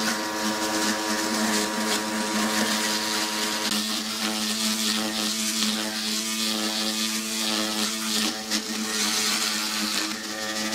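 Electric power tool running steadily: an even motor hum with a hiss over it, the hum wavering a little about four seconds in.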